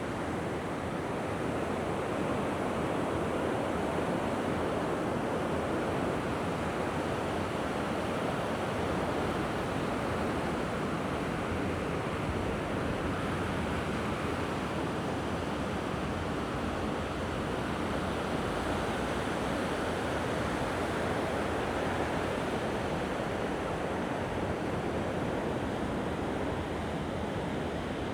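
Sea waves washing onto the beach: a steady, even wash of surf.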